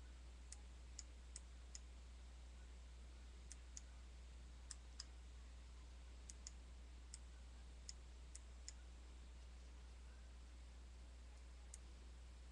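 Near silence: a steady low hum with about fifteen faint, sharp clicks at irregular intervals, the clicking of a computer's mouse and keys.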